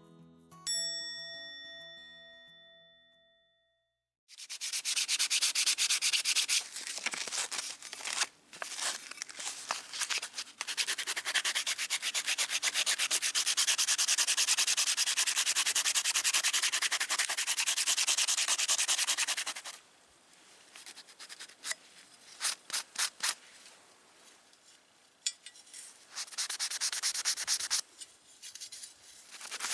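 A chime rings and fades over the first few seconds. Then an aerosol can of heat-resistant black paint hisses in a long, steady spray of about fifteen seconds with a few brief breaks, followed by a quick series of short bursts and another long spray near the end.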